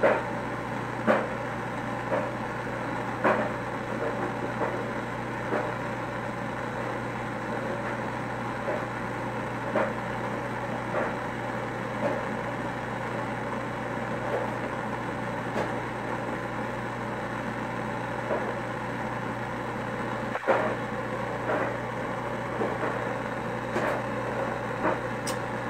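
Handheld gas torch burning steadily with a constant hissing roar of its flame, broken by a few short, irregular clicks.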